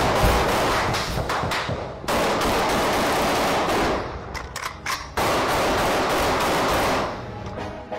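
Automatic rifle fire in long continuous bursts. About four seconds in there is a brief break with a few single shots, then another long burst that stops about a second before the end.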